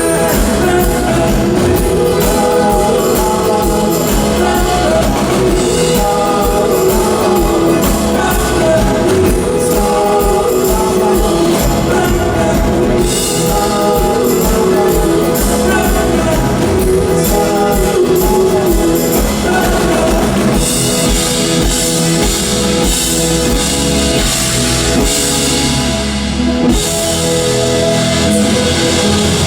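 Live band playing a song during a sound check, with drum kit, guitar and singing.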